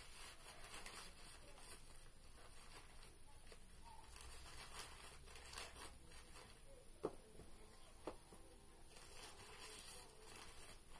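Faint rustling and crinkling of paper or plastic being handled and torn, with two sharper clicks about seven and eight seconds in.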